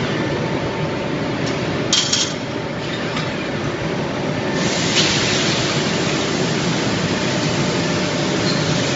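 Hub forging line running with steady industrial machine noise, a sharp metallic clink about two seconds in, then a loud hiss of spray or air starting about halfway through and holding on.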